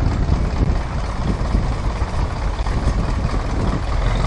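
Ursus C-360 tractor's diesel engine running steadily.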